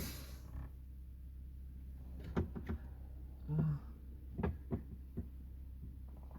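Scattered light clicks and taps of hands handling a phone and the car's dashboard trim, over a low steady hum. There is a short low voice-like hum about three and a half seconds in.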